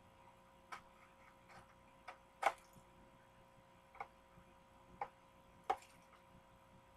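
Irregular sharp clicks and crackles of a plastic-and-card Hot Wheels blister pack being worked open by hand, about seven in all, the loudest about two and a half seconds in.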